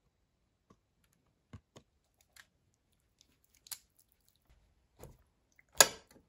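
Quiet food-handling sounds: scattered light taps and clicks as a whole raw chicken and cut vegetables are handled in a speckled enamel roasting pan, with one sharper, louder knock near the end.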